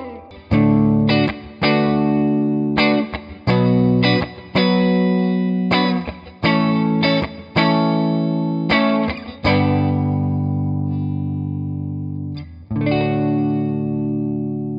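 Electric guitar played through a JHS 3 Series Reverb pedal: a run of strummed chords, each leaving a reverb tail, then one chord left to ring and fade for about three seconds before a last chord is struck near the end and rings out.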